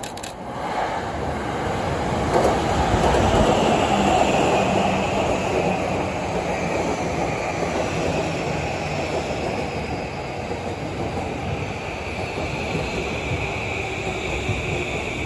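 JR East E235-series electric train running into the station and slowing: rail and wheel rumble that builds over the first few seconds and then holds loud and steady as the cars pass, with a high whine that falls slowly in pitch.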